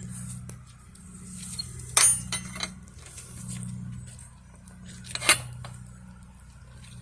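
Sharp metallic clinks and clanks: a loud one about two seconds in with two lighter ones just after, and another about five seconds in, over a steady low hum.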